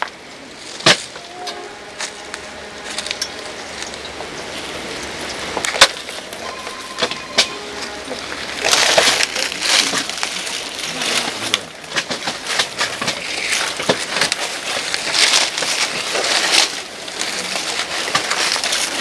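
Earth being shovelled and thrown by hand onto a grave: gritty soil scattering and crunching, with two sharp knocks in the first six seconds and a dense run of scattering soil from about nine seconds in.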